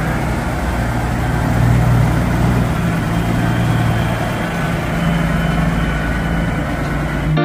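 Semi truck's diesel engine running steadily at low revs, a deep even rumble with no revving.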